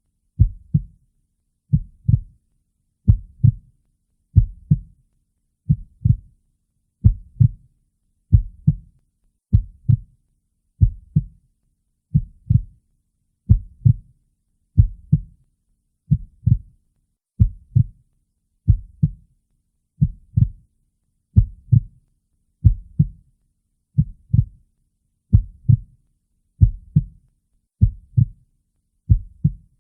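Heartbeat: a slow, steady lub-dub, each beat a low double thump, repeating about every one and a half seconds.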